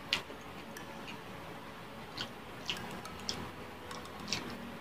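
Quiet eating sounds: several brief, sharp mouth clicks and smacks, scattered irregularly, while chewing a hand-fed mouthful of rice and dried fish in oil.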